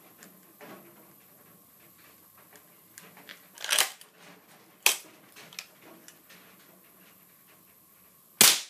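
A .22 air rifle fires once near the end, a single loud sharp crack with the pellet striking a hard drive at close range. A couple of softer knocks and clicks come about 4 and 5 seconds in.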